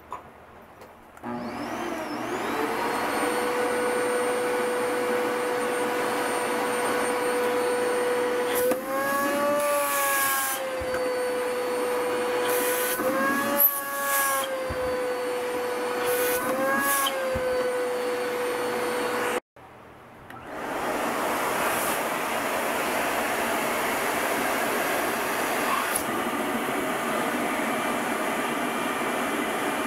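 A household canister vacuum cleaner starts about a second in and runs with a steady whine. Three times its pitch rises for a second or two as the hose end seals against an impact driver and lifts it by suction. After an abrupt break, a Hitachi Koki RP35RYD2 dust collector runs with a steadier, rushing noise, its hose holding up the same impact driver.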